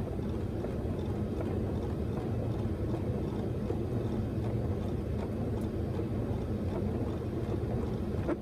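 Steady low rush of airflow and engine noise inside a Boeing 737 flight deck on final approach.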